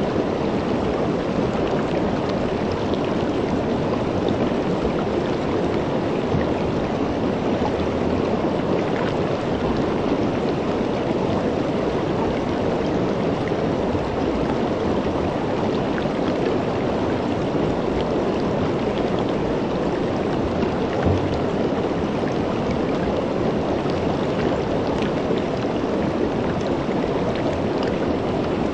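Shallow creek running steadily over rocks and stones, a constant rushing of water with no breaks.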